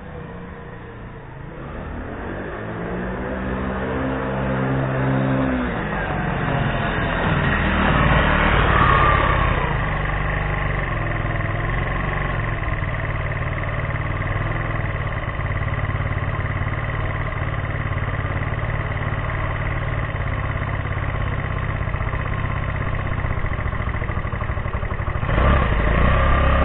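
Benero motor scooter's engine running and accelerating, getting louder over the first several seconds, with revs rising around eight seconds in and a louder surge near the end.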